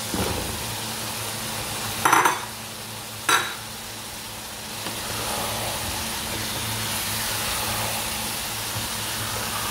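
Potato cubes tipped into a pan of minced meat and peas frying in oil, with two clattering knocks about a second apart, then a steady sizzle as the mix is stirred with a spatula.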